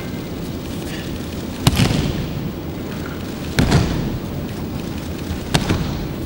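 Aikido breakfalls: a thrown partner's body slapping and thudding onto tatami mats three times, about two seconds apart, each impact echoing in a large hall over a steady background hum.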